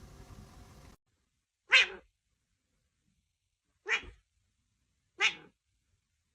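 A pet animal making three short, sharp noises spaced a second or two apart, after a faint steady hiss that cuts off about a second in.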